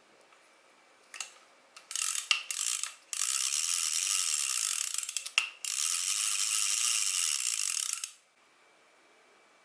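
Daiwa spinning reel being cranked by hand, its gears and rotor whirring in two steady runs of a couple of seconds each, with a short break and a click between them.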